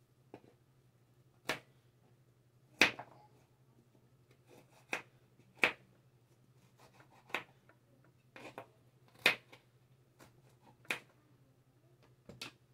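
Knife cutting carrots on a cutting board: about ten sharp knocks, irregularly spaced a second or two apart, over a faint steady low hum.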